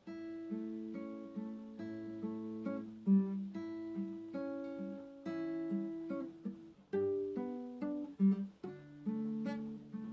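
Solo acoustic guitar (violão) playing a slow, gentle piece: single plucked notes and chords follow one another about every half second and ring on.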